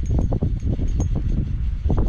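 Wind buffeting the microphone as a low rumble, over a quick run of short, irregular ticks from a spinning reel being cranked to wind in line.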